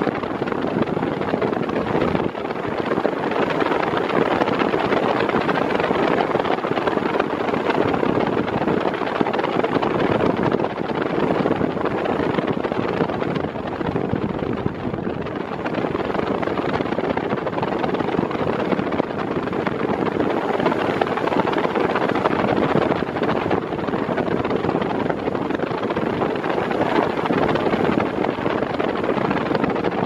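Mondial Turbo Force 8 40 cm eight-blade fan running at its top speed: a loud, steady rush of moving air with the motor's hum, heard close in front of the grille.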